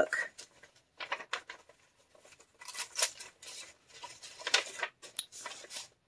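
Paper pages of a handmade journal being turned and handled by hand: several short scratchy rustles with brief pauses between them.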